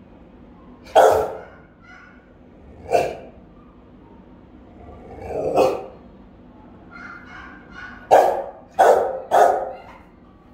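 Rottweiler barking: single barks a couple of seconds apart, then three quick barks in a row near the end.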